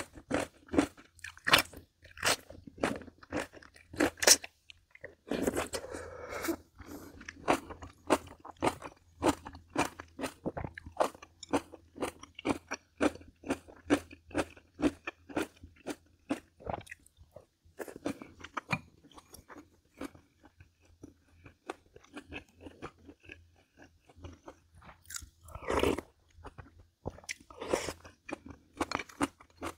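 Close-up chewing of crunchy pickled vegetables: a steady run of crisp crunches, about three a second, loudest in the first few seconds.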